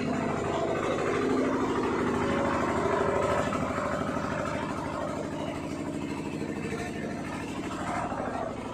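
Belt-driven woodworking machinery running steadily, an even motor hum.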